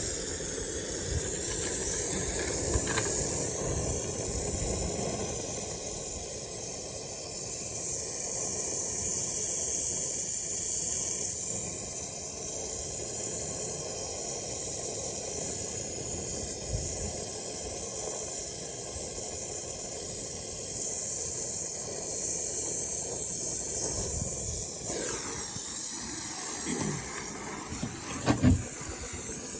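Gas brazing torch flame burning with a steady hiss. Near the end the hiss shifts and there is a short knock.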